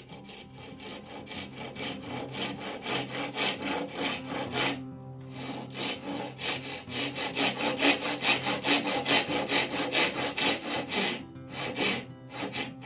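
Western-style handsaw rip-cutting down into the end of a board held in a vise, with quick, even push-and-pull strokes of about four a second. The sawing pauses briefly about five seconds in, runs on, then stops again near the end for a few final strokes.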